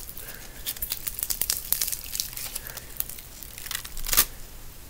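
Hard, crunchy bead-filled slime being squeezed and pulled apart by hand, giving off irregular crackles and small pops, with a louder cluster about four seconds in. The slime is stiff and hardened.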